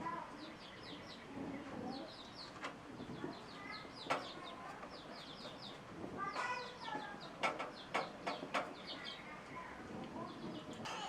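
Birds chirping in quick repeated runs of high notes, with several sharp clicks and knocks, most of them clustered in the second half.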